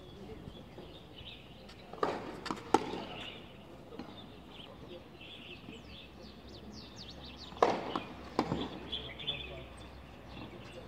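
Tennis balls struck by rackets on a clay court: two pairs of sharp knocks, about two seconds in and again near eight seconds. Birds chirp in the background.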